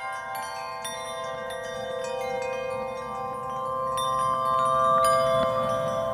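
Bell-like chime tones struck one after another, each ringing on and overlapping the others, growing louder in the second half.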